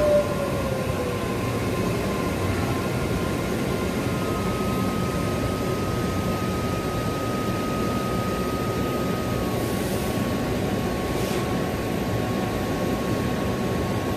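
Interior running noise of a BEML-built Mumbai Metro train in motion: a steady rumble with thin steady electric whine tones over it, the higher whine dropping away about two-thirds of the way through.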